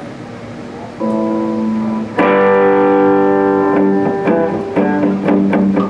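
Electric guitar playing ringing, held chords. It comes in softly about a second in, gets much louder about two seconds in, then changes chord several times.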